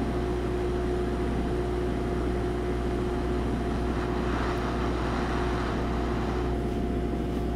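Hot-air tool held over a circuit board, its fan blowing as a steady rush with a constant hum.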